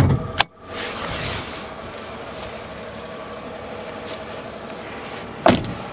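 A sharp click about half a second in as the hood-release lever under the dash of a 2003 Mercedes-Benz E320 is pulled, unlatching the hood. After it a steady engine hum runs, and there is one loud knock near the end.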